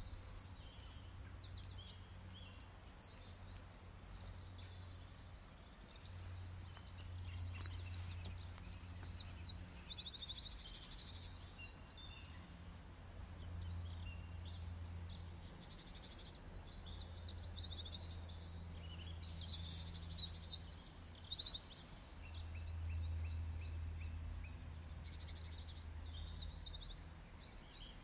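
Several small birds chirping and trilling on and off, busiest from about 18 to 21 seconds in, over a low steady hum.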